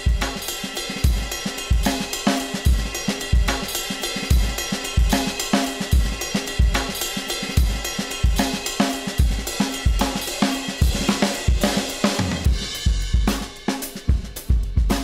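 Recorded acoustic drum kit groove, with a steady kick drum pattern under snare and cymbals, played back with heavy compression of about 10 dB of gain reduction. The kick sounds a little choked.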